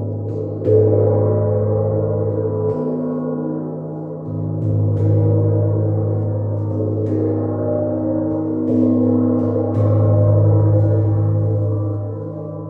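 Gong struck several times, roughly every two seconds, the loudest stroke about a second in, each leaving a long, layered ringing that builds into a continuous wash over a deep steady hum.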